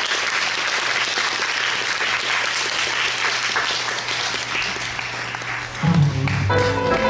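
Theatre audience applauding steadily. About six seconds in the clapping gives way to music, which starts with a low note and then held tones.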